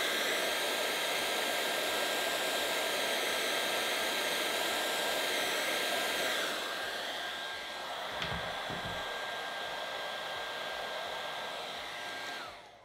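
Einhell heat gun blowing hot air, a steady rush with a high whine, shrinking heat-shrink tubing over soldered wire joints. A light click comes a little after eight seconds in, and near the end the blower winds down.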